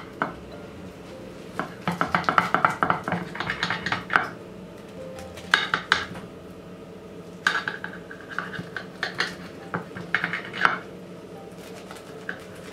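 Serrated knife sawing through the crisp baked crust of a börek on a ceramic plate. The cutting comes in about five bursts of rapid rasping strokes, with the blade clicking against the plate.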